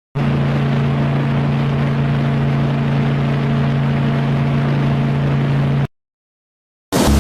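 A ship's horn sounding one long, steady, low blast with a loud hiss over it. It starts and cuts off abruptly.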